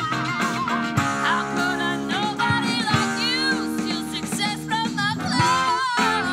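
A rock-opera stage number: voices singing over a live band with guitar and drums, sung lines wavering in pitch over sustained chords.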